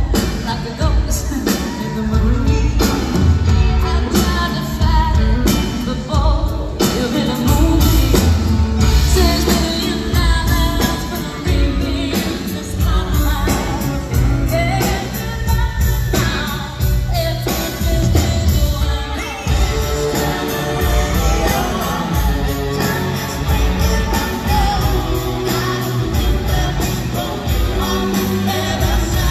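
Live pop-rock band with electric guitars, drums and keyboard playing loudly through a concert sound system, with a female lead singer and, later, a male singer joining in.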